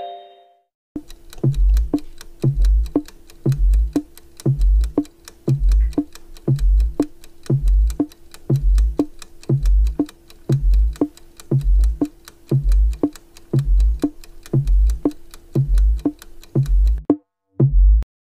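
Countdown timer sound effect: fast, even ticking over a deep beat about once a second and a held low note, counting down the seconds. It cuts off about a second before the end as the count reaches zero.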